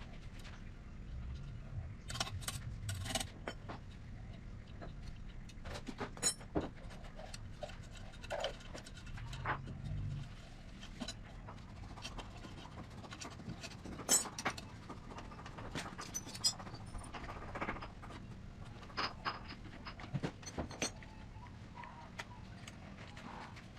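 Irregular clicks, clinks and knocks of tools and metal parts being handled, with a few duller thumps.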